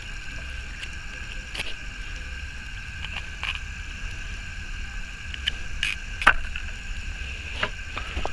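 Steady night chorus from the marsh: a continuous high ringing at two pitches. A few short clicks and rustles come from a knifefish being cut open with a knife by hand, the loudest a little past six seconds in.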